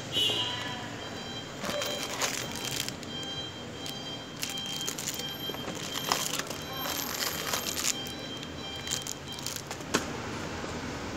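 Plastic packaging crinkling and rustling, with scattered light clicks and knocks, as the contents of a CCTV camera box are handled.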